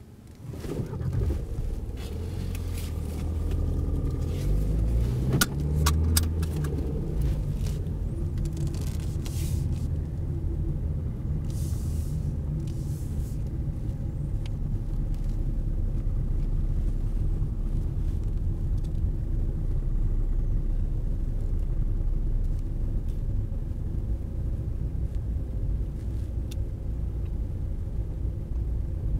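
Car running, heard from inside the cabin: the engine note rises as the car pulls away and accelerates over the first few seconds, then settles into a steady low rumble of engine and road noise while driving. A few sharp clicks come about five to six seconds in.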